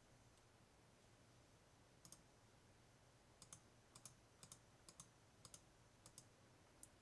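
Faint computer mouse button clicks, scattered from about two seconds in, several in quick pairs, over near-silent room tone.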